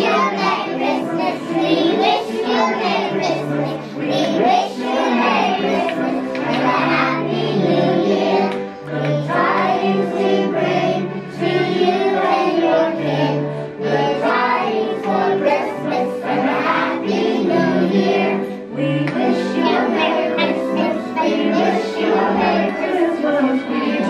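A group of young children singing a song together in unison over a musical backing track.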